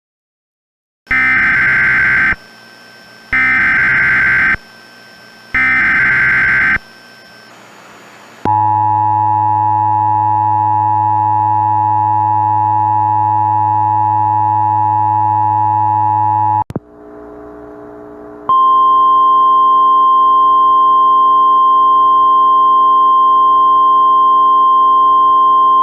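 Emergency Alert System tones: three short warbling SAME data header bursts, then the steady two-tone EAS attention signal for about eight seconds. After a brief break with a low hum, a single steady alert tone near 1 kHz, the NOAA Weather Radio warning alarm tone, starts and holds to the end.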